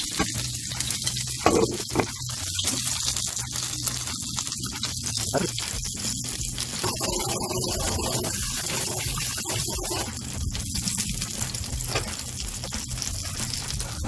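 Cooking sounds: a pot of spicy fish stew bubbling at the boil, then strips of makchang (grilled intestine) sizzling and crackling in oil in a frying pan, with a steady low hum underneath.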